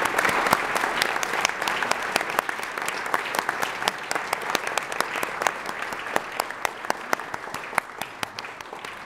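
Audience applauding, dense at first and slowly dying away to a few scattered claps near the end.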